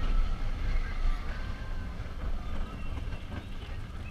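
Roller coaster train running along its track: a steady low rumble of the wheels on the rails, with a faint whine over it in the first couple of seconds.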